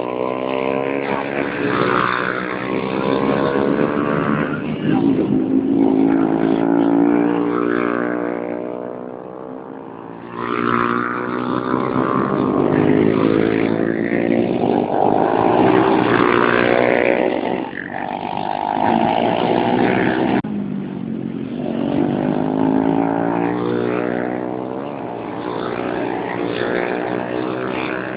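Racing motorcycle engines at full race pace. The pitch climbs as they accelerate through the gears, and drops sharply off throttle a few times.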